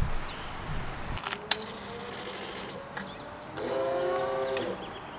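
2009 Kawasaki Ninja ZX-6R on its first start attempt after a new fuel pump and wiring harness: a click, a faint rising electric whine, then a louder steady whine for about a second near the end as it is cranked.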